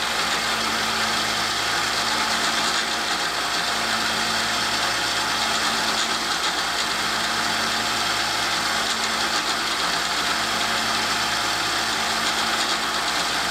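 Harbor Freight 1x30 belt sander running steadily with a stropping belt fitted, as a broadhead is stropped on it with barely any pressure; a steady motor hum under the even whir of the belt.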